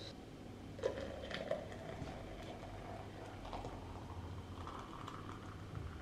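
A couple of clinks about a second in, then hot water poured from a stovetop kettle into a stainless steel cafetière, the pouring rising in pitch as the pot fills.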